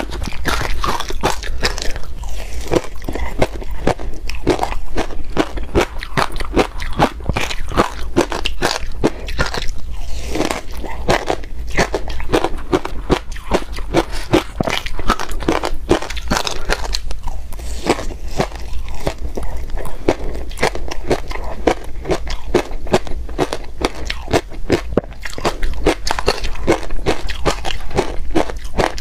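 Crushed ice coated in matcha powder being bitten and chewed: a dense, continuous run of crisp crunches.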